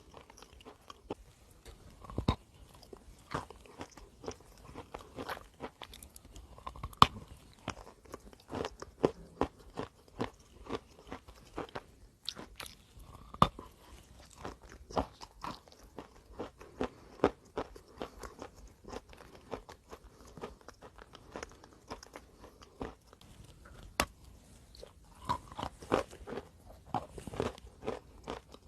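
Close-up crunching as someone bites and chews chalk: dense, irregular crisp cracks and grinding crunches, with sharper bites every second or two.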